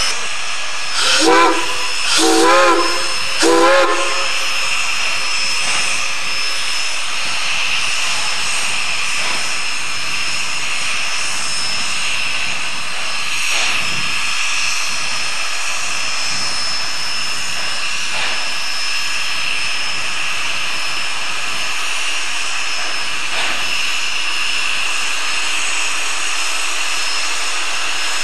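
Shay steam locomotive's whistle: three short blasts in the first few seconds, followed by a steady hiss.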